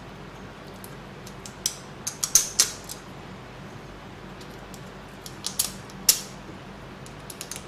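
Small, sharp clicks and clinks of metal screws and lock nuts being picked up and fitted through carbon-fibre frame plates, coming in two short clusters with a few more near the end.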